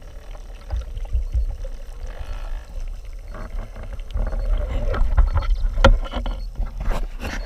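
Water sloshing and splashing over a steady low rumble, with several sharp knocks in the second half, the sharpest about six seconds in.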